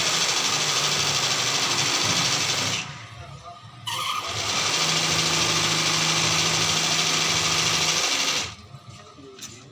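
Sewing machine running at speed, stitching embroidery on a shirt, in two runs of about three and four seconds with a short stop between them, its motor humming steadily through the second run.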